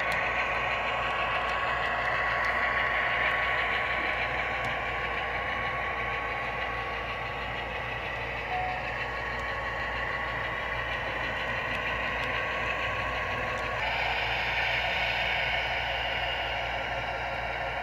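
Diesel switcher engine sound from the DCC sound decoder of an HO-scale Southern Pacific model locomotive, a steady engine drone that shifts suddenly in tone about 14 seconds in.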